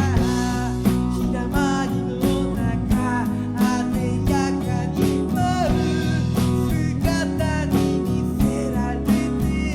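Music: a band song with guitar over a steady drum beat.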